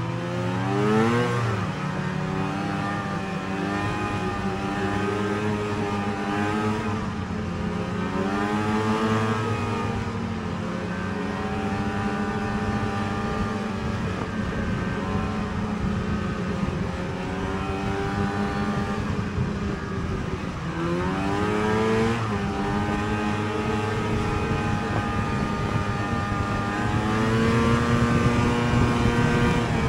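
Two-stroke snowmobile engine under way, its pitch rising and falling with the throttle. It revs up sharply about a second in and again about two thirds of the way through, and runs a little louder near the end.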